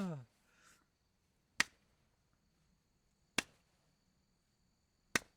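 Three sharp clicks, evenly spaced a little under two seconds apart, with a faint steady high-pitched tone between the first and the last.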